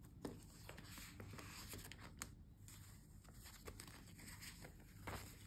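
Faint rustling and soft crinkles of paper banknotes being handled and slid into a paper cash envelope in a ring binder, with scattered light ticks.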